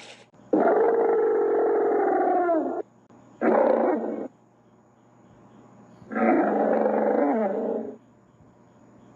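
Three animal calls used as a creature sound effect, growl-like and pitched, each ending with a downward bend in pitch; the first and longest is about two seconds, the second is short and the third is a little under two seconds.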